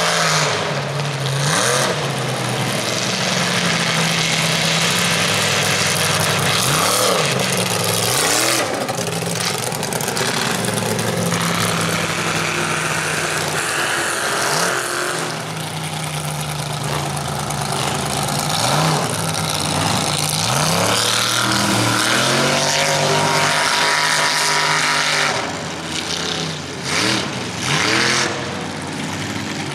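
Motor vehicle engines running and revving, their pitch rising and falling again and again over a steady loud roar of several engines at once.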